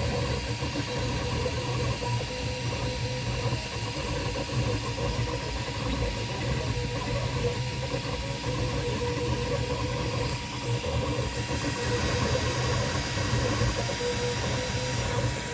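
Toybox 3D printer running near the end of a print: a steady mechanical hum and whir of its motors and fan, with a few held tones over a shifting low rumble.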